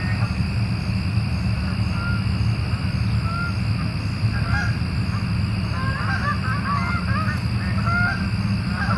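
A flock of waterbirds calling on the lake: short calls, scattered at first, then many overlapping from about halfway through, over a steady low rumble.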